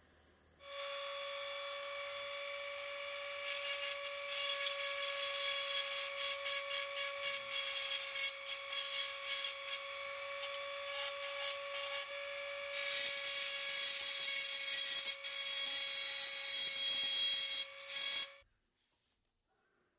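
Small handheld rotary tool running with a steady high whine, its grinding bit working a soldered joint on a tin toy boat hull. The grinding comes in quick, uneven pulses as the bit is touched on and lifted off, then grinds more continuously. The tool starts about half a second in and stops shortly before the end.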